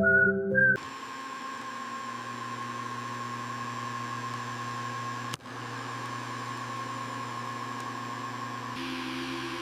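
Robot vacuum running: a steady motor hum and whir with a few constant tones. It starts as a short music phrase ends within the first second, drops out for an instant about halfway, and changes slightly in tone near the end.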